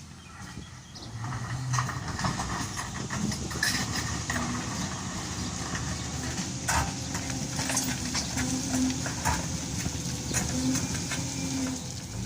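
SDLG wheel loader's diesel engine running under load, growing louder about a second in, with scattered metallic clanks and knocks.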